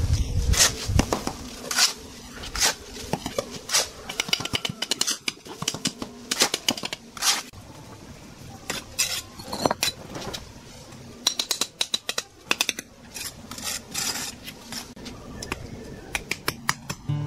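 Steel bricklaying trowel scraping mortar and tapping on hollow clay bricks as they are set in place: irregular sharp clinks and scrapes.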